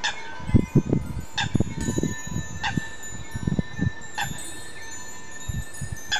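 Wind chimes ringing: about six separate strikes, a second or so apart, each leaving a long high ring, over soft low thumps.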